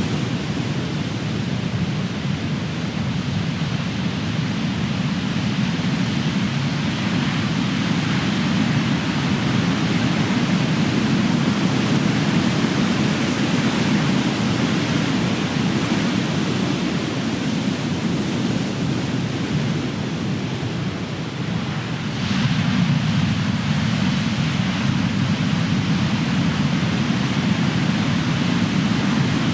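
Big ocean waves crashing on the shore: a continuous rushing surf that swells and eases, with one wave breaking more sharply about two-thirds of the way in.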